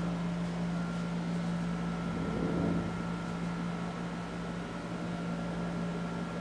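Steady ventilation hum: a low constant drone with a faint higher whine over an air hiss. A brief soft rustle comes about two and a half seconds in.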